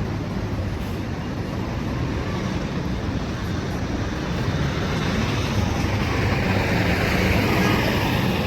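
City street traffic: a steady rumble of vehicles, one growing louder over the last few seconds.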